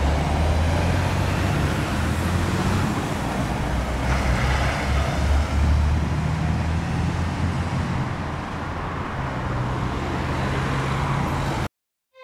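Road traffic noise, with passing vehicles' engines making a steady low rumble. It cuts off suddenly near the end.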